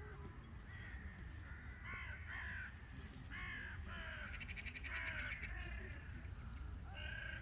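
A flock of crows flying overhead, giving repeated harsh caws from several birds at once, with a brief rapid rattling call about halfway through. A steady low rumble runs underneath.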